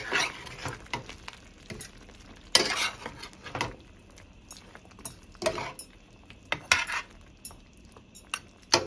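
Metal spoon stirring chicken curry in a stainless steel pan, scraping and clinking against the pan about six times, with a faint sizzle from the simmering curry between strokes.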